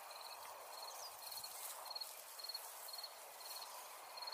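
A cricket chirping faintly at an even pace, about two short trilled chirps a second, over a soft steady hiss of outdoor ambience.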